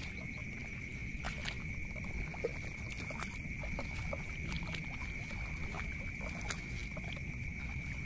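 Night-time rice-field ambience: a steady, unbroken high-pitched insect drone with scattered faint clicks over a constant low rumble.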